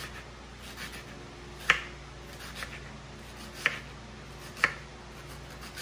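Kitchen knife slicing red onion on a cutting board: a handful of slow, separate knife strokes, each a sharp tap on the board, three of them louder than the rest.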